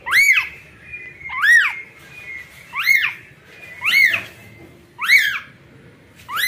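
Newborn kitten meowing over and over: six short, high calls about a second and a quarter apart, each rising then falling in pitch. It is calling for its mother.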